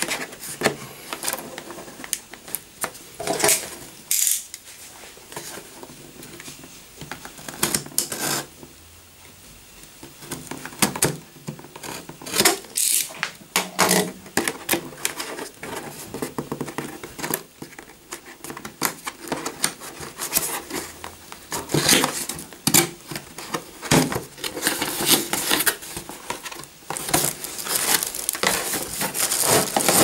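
Fingernails scratching and picking at the tape seal of a cardboard box, with irregular taps, scrapes and rustles of cardboard as the box is opened. The handling grows busier in the last several seconds as the flaps are opened.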